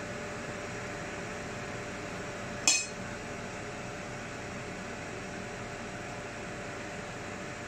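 Steady hum and hiss with one sharp clink about two and a half seconds in, as a metal spoon is set down after spooning samosa filling onto the dough.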